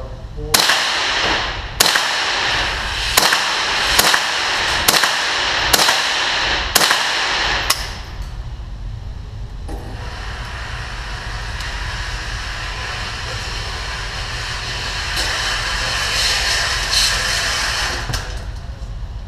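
Eight shots from a Ruger 10/22 semi-automatic .22 LR rifle, about one a second, each echoing briefly down the concrete range lane. About ten seconds in, the range's electric target carrier starts and runs steadily as it brings the paper target back, stopping near the end.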